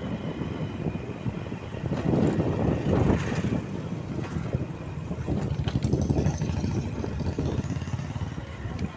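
Engine and road noise from a moving vehicle, with wind buffeting the microphone. A motorcycle passes close by, louder for a moment about three seconds in.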